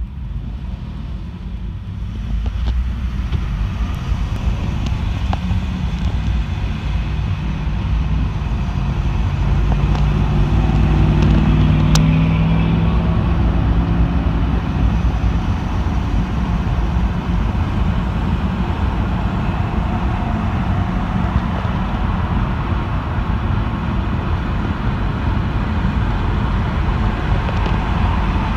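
A 2011 Subaru Impreza's flat-four engine, heard from inside the cabin under gentle acceleration from a standstill to about 55 mph. Revs climb from idle to about 3,000 rpm, and the engine hum and road noise grow louder over the first ten seconds, then hold steady. There is a single brief click near the middle.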